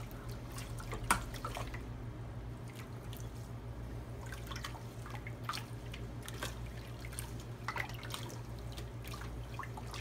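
Dye liquid dripping and splashing in a plastic tub as wet wool skeins are dunked and lifted in the red dye bath: scattered irregular drips over a steady low hum.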